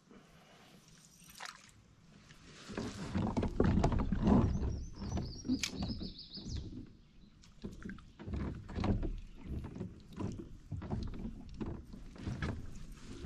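Water sloshing and slapping against a fishing kayak's hull in irregular splashes, starting about two seconds in and loudest a couple of seconds later.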